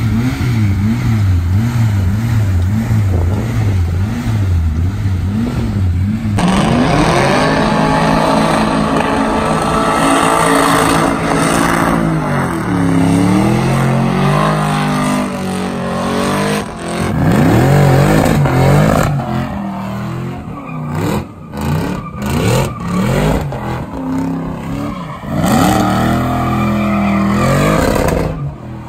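Cars spinning donuts and doing burnouts: engines revving hard with the pitch swinging up and down over and over, over a wash of tyre squeal. About six seconds in it turns abruptly louder and noisier, and in the last part it comes in choppy surges.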